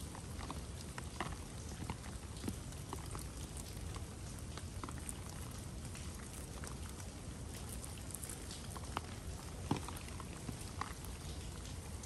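Steady rain falling, with many irregular drips and taps of drops.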